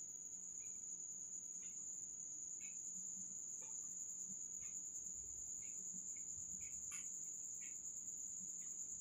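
Chicken balls deep-frying in hot oil in a saucepan: a faint sizzle with scattered small crackles and one light tick about seven seconds in, under a steady high-pitched whine.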